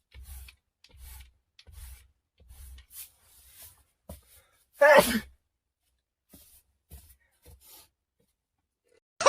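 A person sneezing once, loudly, about five seconds in, the voiced part of the sneeze falling in pitch. Before it come a run of soft short noises, about two a second.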